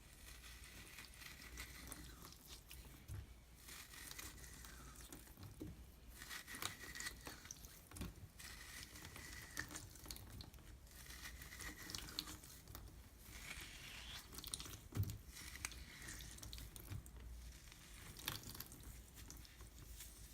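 Wet floral foam being crushed by hand, crunching and crackling in irregular bursts, with faint high squeaks that come and go.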